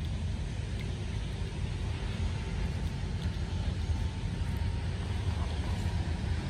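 Electric fish shocker running with its electrode poles in the water, a steady low drone and a faint thin whine above it in the middle part.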